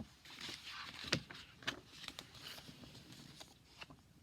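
Faint rustling of a paper book being handled, with a sharp click at the start, a louder knock about a second in and a few softer taps.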